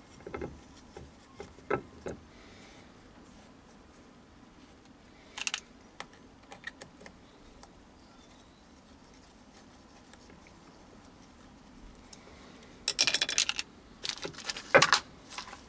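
Small steel parts being handled on a bench: scattered light clicks and taps, then a quick rattle of clicks about 13 seconds in and a few sharper clicks just after.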